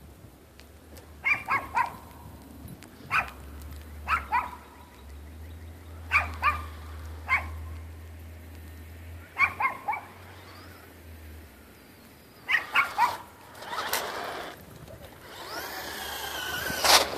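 A dog barking in short bursts of two or three barks, a new burst every few seconds.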